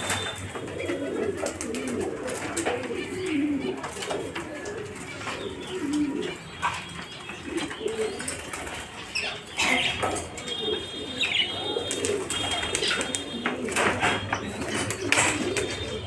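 Domestic pigeons cooing over and over in low, warbling calls, with scattered clicks and a few short, higher calls in between.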